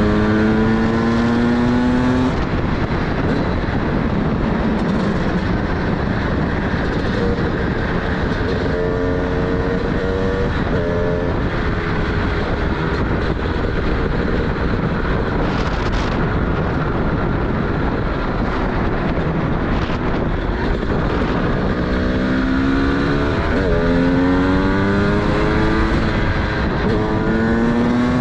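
Single-cylinder two-stroke engine of a TM SMR 300 supermoto with a DBR exhaust, accelerating hard several times; its pitch climbs in steps as it shifts up. Long stretches of wind rush and road noise lie between the pulls.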